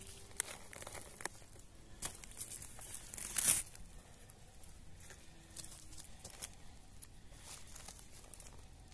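Irregular rustling and crinkling, with a louder rustle about three and a half seconds in and sparser, quieter crackles after it.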